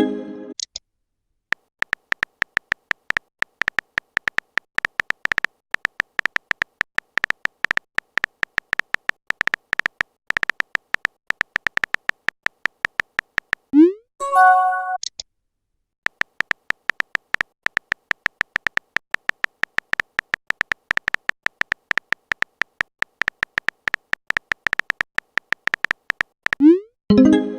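Rapid, continuous clicking of a texting app's simulated phone keyboard with a steady high ring, broken three times (near the start, about halfway and near the end) by a short electronic chime that opens with a quick rising sweep, like a message being sent or received.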